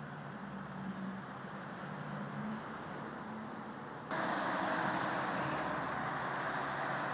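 Outdoor road noise on a snowy night: a quieter steady rush with a faint low hum at first, then, after a sudden jump in level about four seconds in, the louder steady rush of cars driving on a snow-covered highway, with tyres running on the snowy road.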